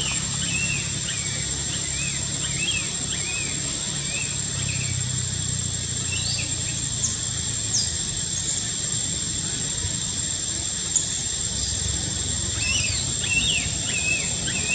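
Outdoor forest ambience: a steady high-pitched insect drone, with runs of short chirping calls near the start and again near the end, over a low steady rumble.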